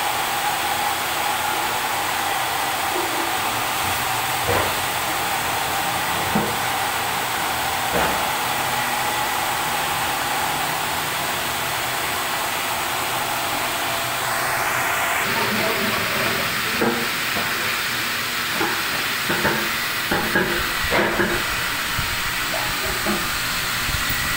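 Steady rushing hiss of water running from a refilling station's filling outlet into a container. About 15 seconds in a faint tone rises briefly and the flow stops, followed by scattered light knocks and clatter.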